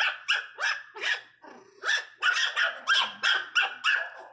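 Miniature pinscher puppies yapping in quick, high-pitched barks, about three to four a second, with a short lull about a second and a half in. They are squabbling over a bone, one puppy angrily defending it.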